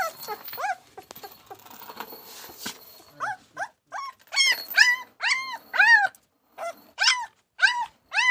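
German shepherd puppy crying in a series of short high-pitched whines, each rising and then falling in pitch. A few come at first, then after a stretch of soft rustling a run of louder cries starts about three seconds in, roughly two a second, with a brief pause about two-thirds of the way through.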